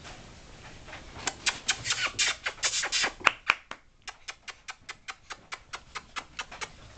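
Standard Poodle puppies' claws clicking on a tile floor: a fast run of sharp clicks starting about a second in, settling into an even tapping of about four or five a second that stops shortly before the end.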